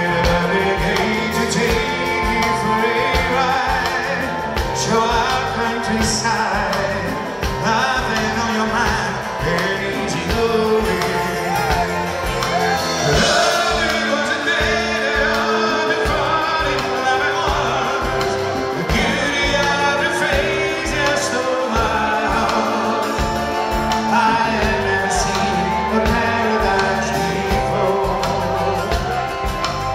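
Live band playing a song: men singing lead and harmony over strummed acoustic guitars, bass and drums.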